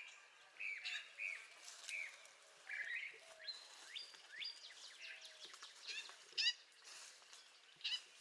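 Several songbirds singing together: short whistled and slurred notes, with a quick rising phrase about six and a half seconds in and again near the end.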